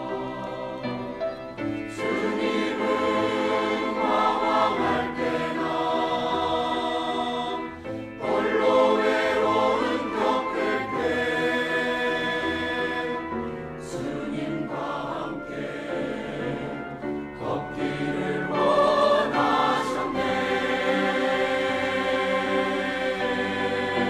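A mixed church choir of men's and women's voices singing a sacred choral anthem in Korean, swelling louder a few times.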